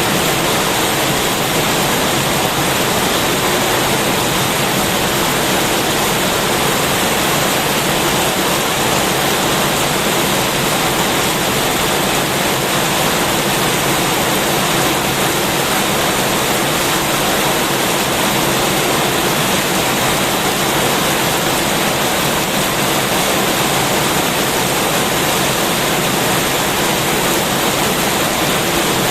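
Heavy rain pouring steadily, a dense even hiss with no breaks and no thunder.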